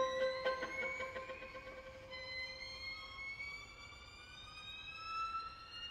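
String quartet playing slow, overlapping upward glissandi in a high register, sounding siren-like. A sudden loud attack opens the passage, and its lower held note fades out about three seconds in.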